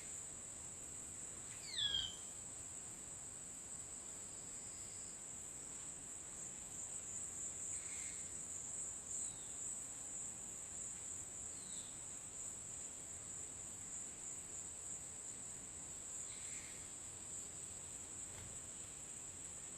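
Steady high-pitched chorus of insects, crickets or similar, running without a break. About two seconds in, a bird gives one loud call that sweeps down in pitch. A few fainter short bird calls follow later on.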